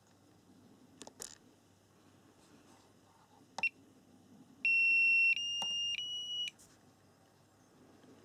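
SkyRC T100 battery charger beeping as its buttons are pressed. A couple of clicks come first, then a short key beep, then three long high beeps, each a little higher in pitch, as the NiMH charge starts.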